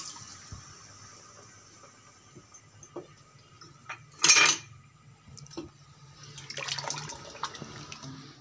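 Water from a jug pouring into a pressure cooker of beef in masala, trailing off in the first moment. Light clinks follow, then one short loud noise about four seconds in, and near the end a silicone spatula stirring the watery curry in the pot.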